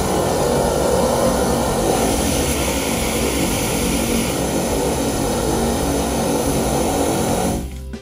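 High-pressure drain jetter running, its hose spraying water inside a drain pipe as a loud, steady rush of noise that cuts off suddenly just before the end.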